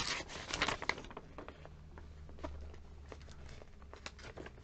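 Paper catalogue pages rustling and crinkling as they are handled, busiest in the first second, then fainter scattered rustles.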